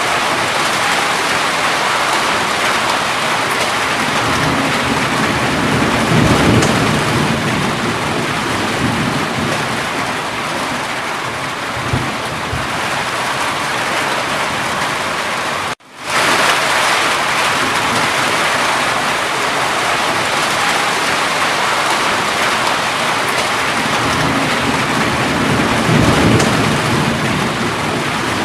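Steady heavy rain with low rumbles of thunder about six seconds in and again near the end. The sound cuts out for a split second about halfway through.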